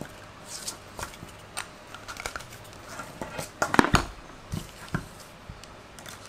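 Small plastic aquarium pump and its cardboard packaging being handled on a tabletop: scattered taps, knocks and rustles, with the loudest knocks around the middle.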